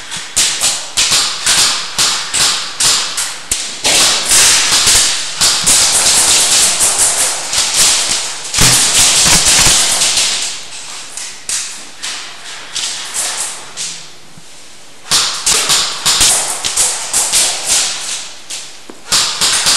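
Airsoft gunfire: rapid, irregular strings of sharp cracks from guns firing and BBs striking, echoing in a large concrete hall, with a short lull about two-thirds of the way through.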